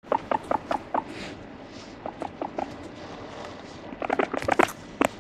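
Abyssinian guinea pig right at the microphone, making runs of short, sharp clicks and taps: a quick string in the first second, a few more around two seconds, and a dense flurry at about four seconds.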